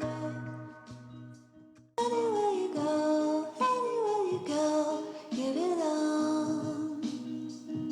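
Background music: a soft chord fades out over the first two seconds, then a song with a female singing voice starts abruptly over a steady accompaniment.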